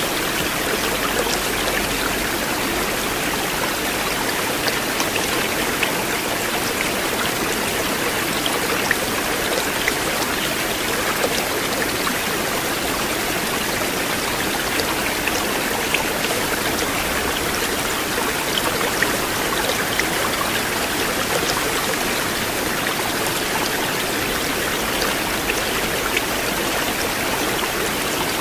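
River water flowing steadily, a constant rushing with small splashes and droplet ticks scattered through it.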